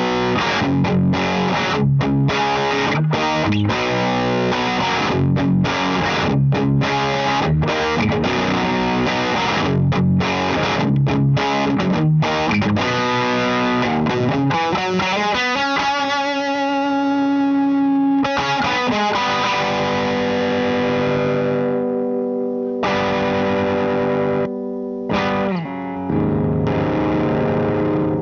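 Electric guitar played through an LPD Pedals Sixty8 Deluxe drive pedal into a Satellite Neutron amp, with a distorted tone. A quick, chopped chord riff runs for about fifteen seconds, then one chord is left ringing and slowly fading, followed by a few more struck chords near the end.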